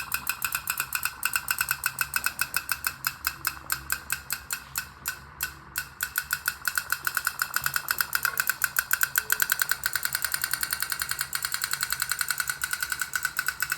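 Candle-heated pop-pop (putt-putt) toy steam boat popping: a fast, even putt-putt of about six to seven pops a second as its little boiler flashes water to steam and drives the boat. The rhythm falters briefly about five seconds in, then settles again.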